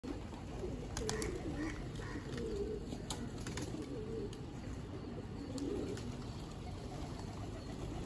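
Feral pigeons cooing in low, warbling calls, which die away after about six seconds. A few sharp ticks are heard among them.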